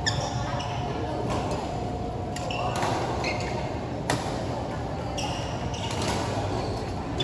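Badminton rally: sharp racket strikes on the shuttlecock at irregular intervals, about one a second, with short high squeaks from shoes on the court floor over a steady hall background.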